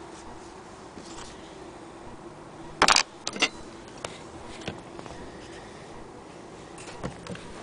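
A few scattered handling clicks and knocks, the loudest a sharp knock about three seconds in, over a faint steady hum.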